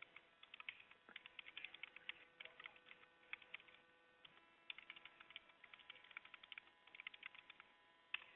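Computer keyboard being typed on in quick bursts of faint clicks with short pauses, heard over a telephone line, with a faint steady hum beneath.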